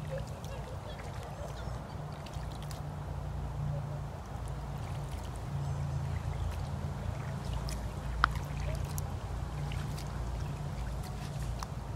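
Wind rumbling on the microphone over small waves lapping at a lakeshore, with a few light ticks and splashes from the shallows.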